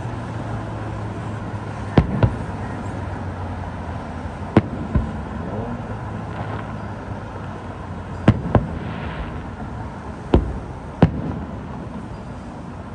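Aerial firework shells bursting in the distance: sharp bangs every two to three seconds, several coming in close pairs a quarter to half a second apart.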